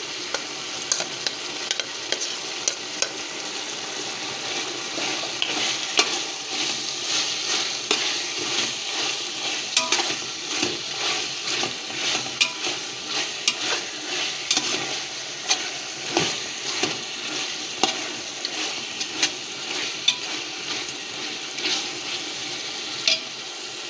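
Chicken pieces frying in oil in a pot, with a steady sizzle. A metal spoon stirs in freshly added garlic paste, with frequent scrapes and knocks against the pot. The paste is being fried until its raw smell is gone.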